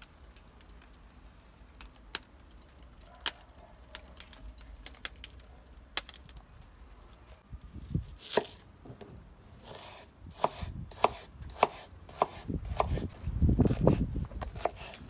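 Scattered sharp crackles from charcoal burning in a chimney starter, then a chef's knife slicing an onion into half-rings on a wooden cutting board, the blade knocking on the board about twice a second.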